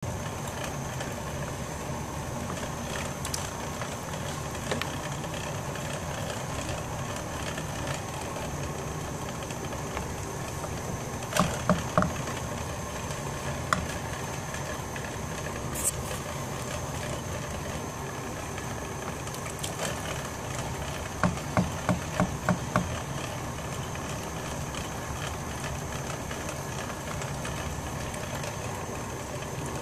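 Steady rush of a gas stove burner heating a large pot of boiling lentils. A ladle knocks against the metal pot: three knocks close together, a couple of single ones, then a quick run of five.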